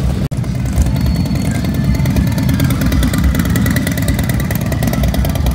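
Harley-Davidson V-twin touring motorcycles running loud as they ride slowly past close by, a low exhaust sound with fast, even firing pulses.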